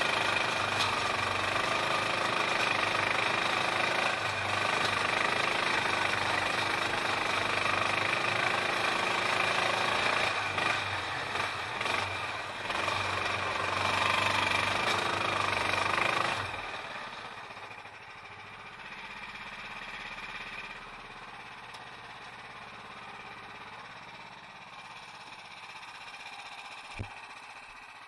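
The 440cc 18 hp single-cylinder Duromax engine of a Hustler 6x6 amphibious ATV running hard under load while driving, then dropping back to a much quieter idle about sixteen seconds in.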